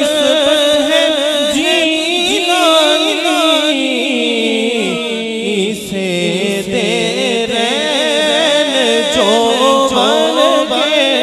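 Male voice singing a naat through a microphone, long held notes ornamented with heavy vibrato and wavering runs.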